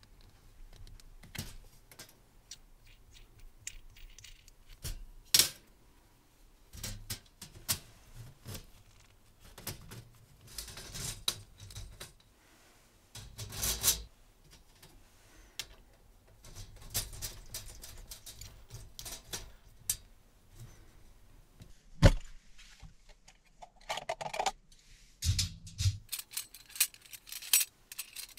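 Small metal hardware clicking and clinking against a steel mesh table as a bolt, washer and nut are fitted through the mesh and tightened by hand. Irregular light clicks and rattles, with a sharp knock about five seconds in and a louder one about three-quarters of the way through.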